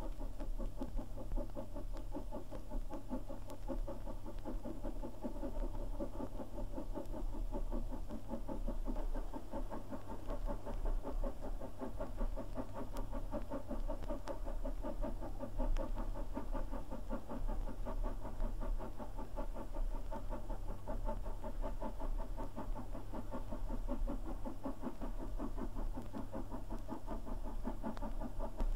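LMS 'Crab' 2-6-0 steam locomotive working a goods train up a 1 in 100 gradient, its exhaust beating in a rapid, steady rhythm over a steady low hum.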